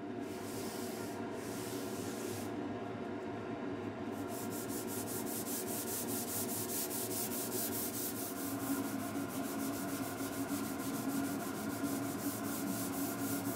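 Sanding a wooden plywood cabinet with 220-grit sandpaper, a steady rubbing.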